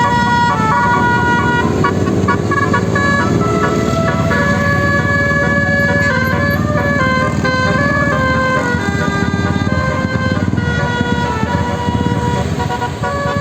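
Tour bus's basuri telolet horn playing a tune: a run of held notes stepping up and down in pitch, over a dense low rumble.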